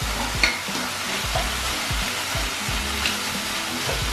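Shredded cabbage and carrot frying in a hot wok with a steady sizzle, stirred with a wooden spatula, with scattered light knocks and scrapes.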